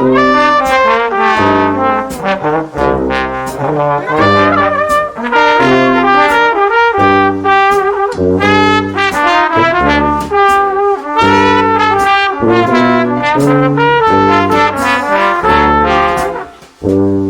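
Upbeat intro music led by brass, trumpet- and trombone-like, over a steady beat and bass line.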